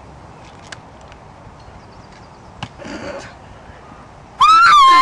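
A sharp click and a short noisy spurt around the middle, then a loud, shrill scream starting about four and a half seconds in that wavers and falls in pitch as it ends.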